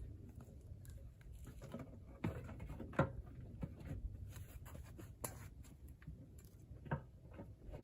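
Scattered light knocks and taps of parts being handled, a few seconds apart, the sharpest about three seconds in, over a low steady rumble.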